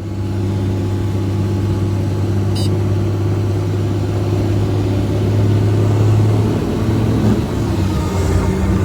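Helicopter in flight heard from inside the cabin: a loud, steady low engine and rotor hum whose pitch shifts slightly about seven seconds in.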